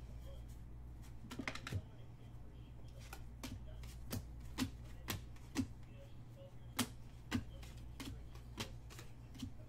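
Trading cards being handled and flipped through, giving a string of sharp clicks and taps, roughly one or two a second at an uneven pace, over a steady low hum.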